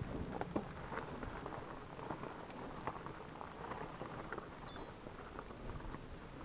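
Fat bike rolling along a trail: tyres crunching over the ground with scattered small clicks and rattles, over a low rumble. A brief high chirp sounds about three-quarters of the way through.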